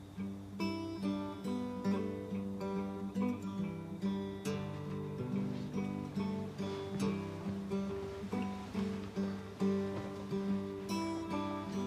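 Background song music: acoustic guitar picking a slow, gentle intro of repeated plucked notes.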